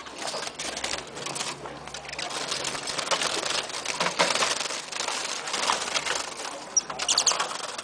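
A group of caged wild songbirds making a dense clatter of short chirps, rustles and wing flutters, with a few brief high chirps near the end.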